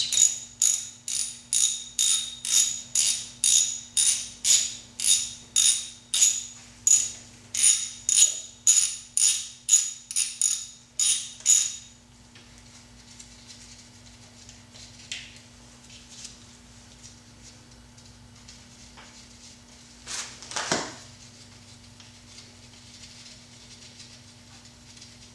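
Hand ratchet with a hex bit clicking in a steady rhythm, a little over two clicks a second, each with a metallic ring, as the bolts of the engine's crankshaft vibration damper are turned. The clicking stops about halfway through; after a quieter stretch comes a single metal knock.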